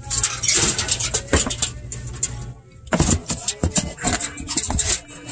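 Quick metallic clicks, knocks and rattles as a commercial freezer's defrost heater element is handled and clipped into place along the evaporator coil, over a steady low hum. The clicks pause briefly about halfway through.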